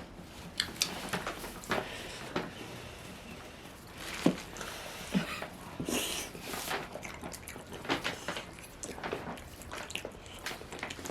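Close-up wet chewing and lip-smacking of someone eating buttery salmon: an irregular run of sharp wet clicks and smacks, with a couple of brief low mouth sounds midway.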